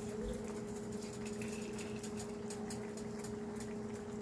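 Biryani liquid boiling in an open pressure cooker on an electric stove, with irregular small ticks and pops over a steady low hum.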